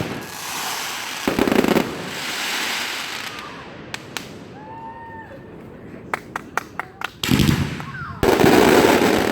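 Fireworks going off: loud bangs trailing into hissing crackle about a second in, a quick run of sharp pops around six to seven seconds, then another big burst of bangs and crackle near the end.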